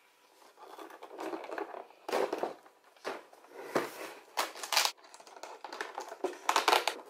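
Cardboard advent calendar box being handled, tilted and set back down on a wooden table: a series of cardboard rustles and scrapes, several of them short and sharp.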